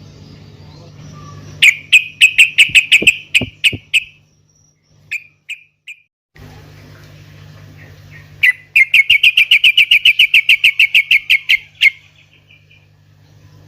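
Sooty-headed bulbul (trucukan) calling in two loud runs of rapid, sharp repeated notes, the second run longer and faster, with a few single notes between them, over a low steady hum.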